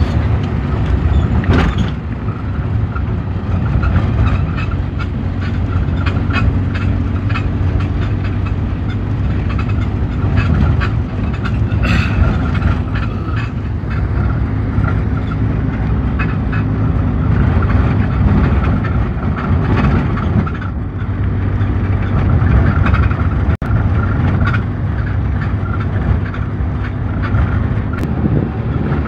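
A car driving, heard from inside the cabin: a steady low rumble of engine and road noise, with scattered knocks and rattles.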